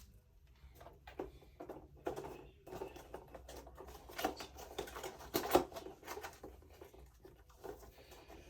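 Handling noise from diamond-painting kits and their packaging: irregular rustling with light clicks and taps, and a sharper knock about five and a half seconds in.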